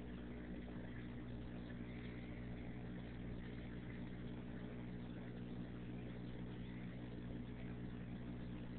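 Steady low electrical hum with an even hiss over it.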